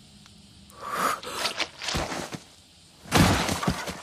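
Sharp, breathy gasps from a shocked person, followed about three seconds in by a louder, fuller burst of noise lasting under a second.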